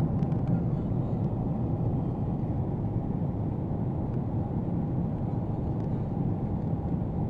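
Steady low drone of a Boeing 777's cabin in flight, the engines and rushing airflow heard from a window seat.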